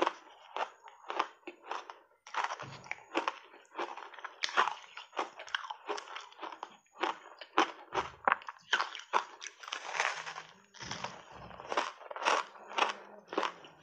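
Crunching and chewing of ice thickly coated in dry matcha powder, bitten off in big bites, with sharp crunches at about two to three a second.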